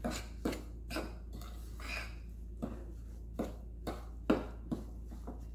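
Metal fork stirring a thick cornbread batter in a bowl, with short irregular clinks and scrapes of the fork against the bowl.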